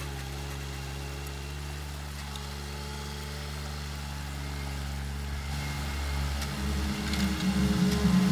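Riding triplex reel mower running steadily while cutting grass, its engine giving a low, even hum. Music fades in near the end.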